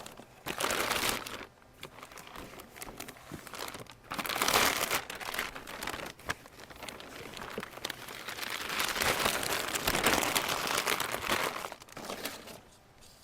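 Plastic shrink wrap being torn off a cardboard box and crumpled, in irregular crinkling bursts with a longer spell of crinkling near the end.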